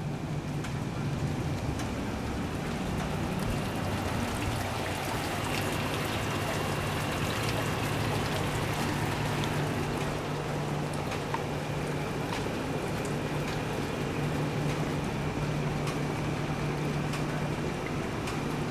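Steady rain falling, with many scattered sharp drips ticking through it, over a low steady hum.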